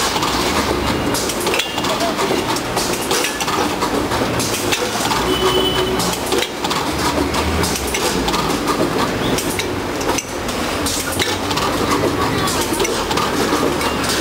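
Packing line running: the metal hoppers of a Newtec 3009XL weigher clatter open and shut and product drops down the chute into bags, giving steady clinking and knocking over a continuous machine hum.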